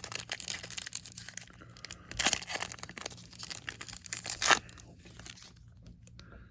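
Baseball card pack wrapper being torn open and crinkled by hand, with two louder rips, about two seconds in and again about four and a half seconds in. It goes much quieter after about five seconds.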